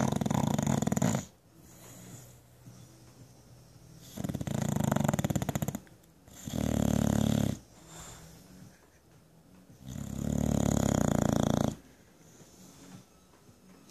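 A bulldog snoring in loud, fluttering snores every few seconds, with quieter breathing between them.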